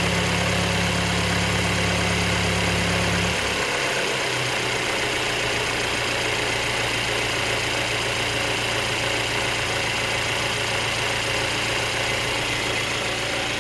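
Mercedes-Benz E250 engine idling steadily. It has an abnormal noise that the owner noticed after 6000 km and that the service centre could not trace. A deep low drone underneath cuts out about three seconds in, leaving a lighter steady hum.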